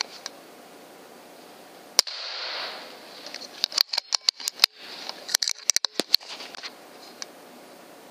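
A .25 FX Impact M3 pre-charged air rifle fires once about two seconds in: a single sharp crack followed by a short rushing noise. A flurry of small clicks and rattles follows a couple of seconds later.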